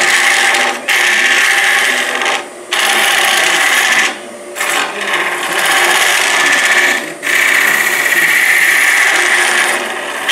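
A turning tool cutting into a spinning cedar blank on a wood lathe as the end is rounded into a sphere: a loud scraping hiss in five passes, each one to three seconds long, with short breaks as the tool comes off the wood.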